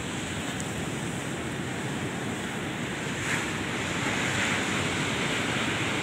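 Sea surf washing on the shore: a steady rushing noise that swells a little about halfway through.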